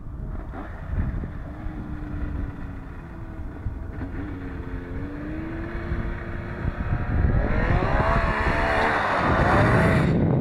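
Snowmobile engine approaching across the snow, its note slowly climbing as it accelerates, then growing much louder from about seven seconds in as the sled comes close and passes, its pitch wavering and dropping near the end. Wind rumbles on the microphone underneath.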